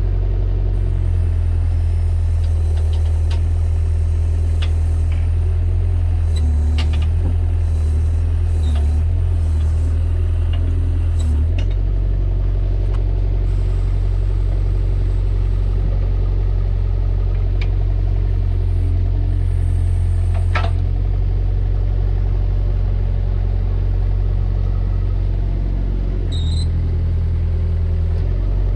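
Bobcat 331E compact excavator's diesel engine running steadily, its note dipping and wavering now and then as the hydraulics take load, with scattered clanks and clicks.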